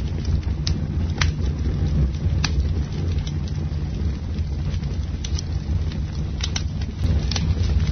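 Campfire burning: irregular sharp crackles and pops from the burning wood, several scattered through, over a steady low rumble.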